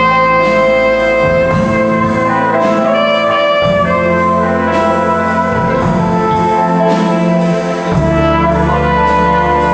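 Jazz band playing: the horns (trumpet, trombone, saxophone) hold long chords over bass and drums, with cymbal strokes keeping a steady beat of about two to three a second.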